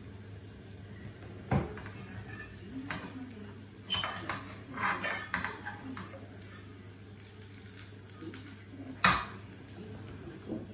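Long-handled metal spoon knocking and scraping against a small frying pan as the food in it is stirred: a few separate clinks, the loudest about four seconds in with a quick run of lighter ones after it, and another sharp one about nine seconds in.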